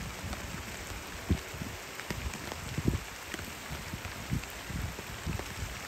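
Steady rain falling on a pond's surface, with irregular low thuds mixed in.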